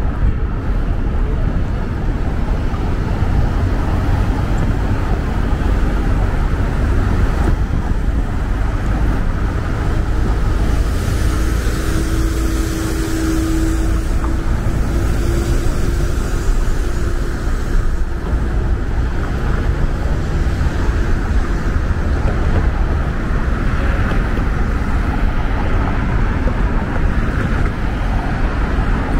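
Downtown city street traffic: cars passing in a steady low rumble. A faint held tone rises out of it about midway and fades a few seconds later.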